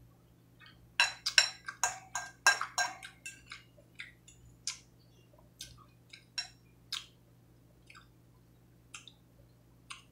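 Eating sounds: short sharp clicks of a metal fork against a ceramic bowl and of chewing, a quick run of them about a second in, then single clicks every second or so.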